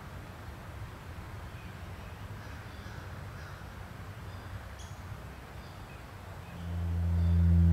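Crows cawing over a low, steady rumble. About a second before the end, a deep droning tone swells in.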